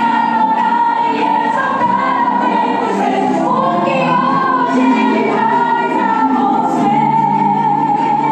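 Gospel song with sung vocals and choir over a full instrumental backing, playing continuously.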